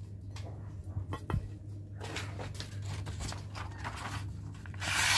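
Steel knife blade slicing through a sheet of paper in papery rasping strokes, the loudest stroke near the end: a sharpness test of the freshly hardened edge. A few faint knocks come before the cutting starts.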